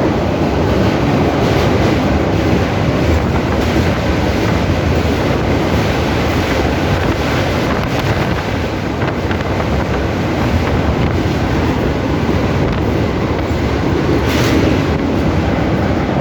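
Steady rumble of a moving train running on the rails, with wind noise on the microphone.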